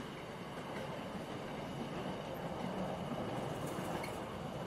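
Intermodal freight train's container wagons rolling steadily past: an even noise of wheels on rail, with a few faint clicks.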